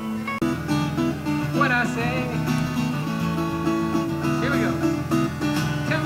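Acoustic guitar-led string band music, in a country or bluegrass style; a fuller passage with low notes comes in sharply about half a second in.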